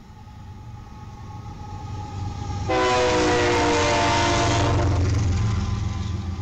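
Freight train's diesel locomotives approaching with a growing engine rumble, then sounding the horn in one loud multi-note blast of about two seconds, starting about three seconds in as the lead unit passes close by. The rumble and rail noise fade as the double-stack container cars follow.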